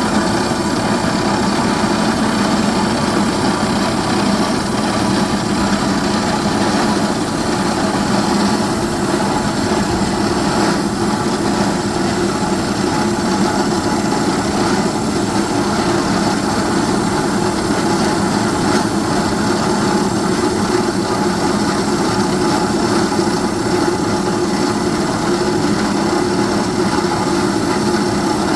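Rock drilling rig running with a steady, unbroken mechanical drone.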